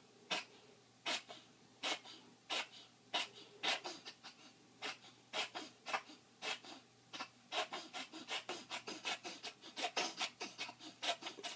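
A pet coughing in a long run of short, dry hacks. The hacks are spaced about a second apart at first, then come quicker and closer together from about halfway through.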